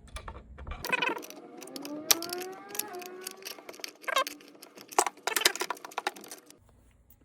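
Pliers clicking and scraping on a fitting of a hot lather machine as it is worked loose, with a drawn-out squeak that rises in pitch about two seconds in.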